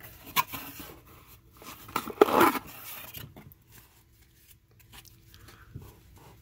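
A stack of baseball cards being handled over a cardboard storage box: a sharp tap about half a second in, a louder scraping slide of cards about two seconds in, then soft rustling as the stack is squared up and thumbed.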